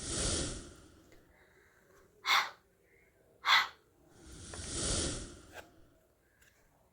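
Two long, breathy, unvoiced exhalations like a drawn-out 'hhh', one at the start and one about four seconds later, with two short sharp puffs in between: a person voicing breathy consonant sounds into the microphone.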